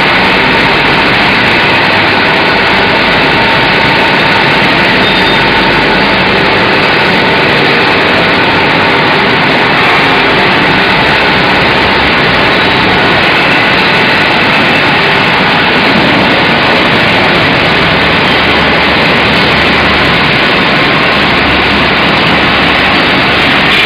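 Steady, loud machine noise from a CNC induction hardening machine running, an even hiss with a few faint steady tones.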